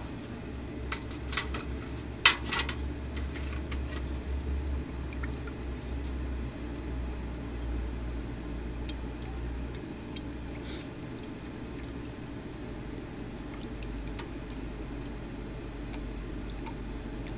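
Hot hardened steel punch being quenched in a metal pot of liquid: a few sharp clinks of the steel against the pot in the first three seconds, then a faint bubbling sizzle as it cools in the bath.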